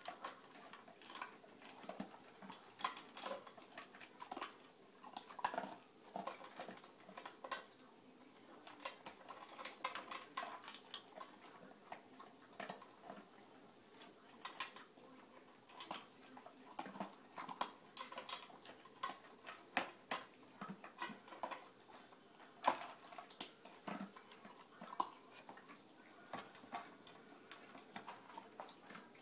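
Two husky dogs eating from stainless steel bowls: irregular crunching and clinking of food and muzzles against the metal.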